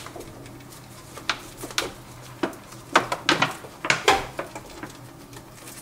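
Irregular metal clinks and knocks from the cover of a Toyota Corolla gearbox case being worked down over the shafts onto the other case half, with a cluster of sharper knocks about three to four seconds in.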